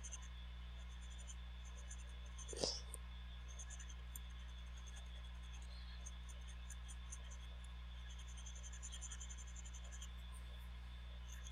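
Faint crackling of flux sizzling under a soldering iron tip on a phone logic board, in irregular clusters of fine ticks over a steady low electrical hum. One short knock about two and a half seconds in.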